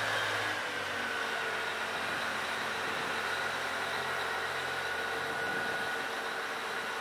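Komatsu HD785-7 rigid dump truck's V12 diesel running steadily, with a high whine over it. A low hum drops away about half a second in.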